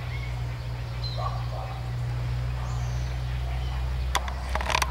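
A steady low hum with a few faint, short bird calls over it, and a quick cluster of sharp clicks near the end.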